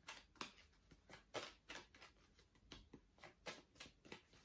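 Faint, soft flicks of an oracle card deck being shuffled by hand, irregular, about three to four a second.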